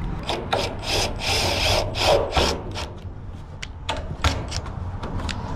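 Timber brace being screwed to a fence post with a cordless impact driver. A rough grinding burst comes about a second in, followed by scattered sharp clicks and knocks of wood being handled.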